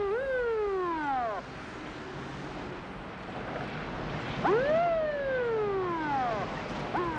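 Siren sounding in short whoops, each rising quickly and falling away over a second or two, about every four to five seconds, over a steady background hiss.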